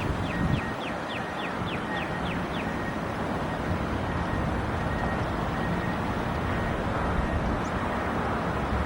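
Steady outdoor rumble of wind buffeting the microphone and distant vehicle noise. In the first two and a half seconds a quick run of short, falling chirps sounds, about five a second.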